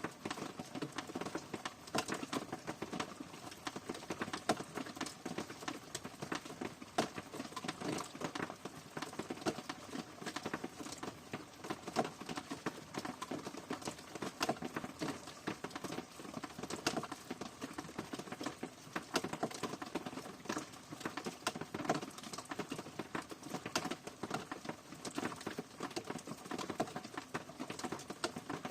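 Steady rain falling, a dense, irregular patter of drops hitting a surface.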